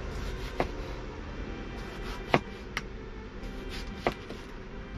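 Chinese cleaver slicing through tomatoes and knocking on a wooden cutting board: four sharp knocks at uneven intervals.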